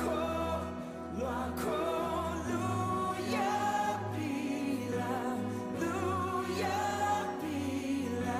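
Music: a song with singing voices over steady, held bass notes.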